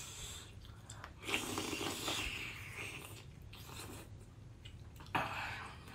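Close-miked eating sounds: a person biting a green mussel off its shell and chewing it, with a sharper mouth sound a little after five seconds.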